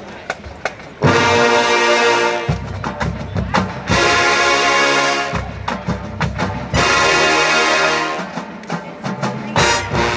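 Marching band brass playing loud held chords over drums, coming in about a second in after a few quiet clicks.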